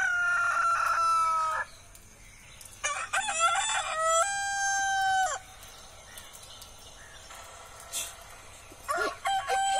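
Recorded rooster crowing played from a YouTube sound-effect video through a mobile phone's speaker. One crow ends about a second and a half in, a second runs from about three to five seconds in, and a third starts near the end.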